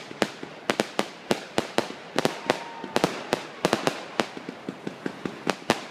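Aerial fireworks going off in a rapid, irregular series of sharp bangs, about four or five a second.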